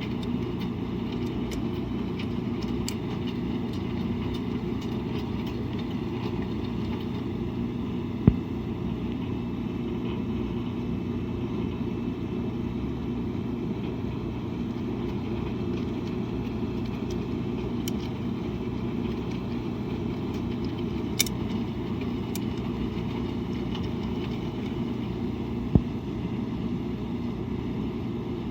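Washing machine running with a steady low drone, with a few sharp knocks, the loudest about eight seconds in and near the end.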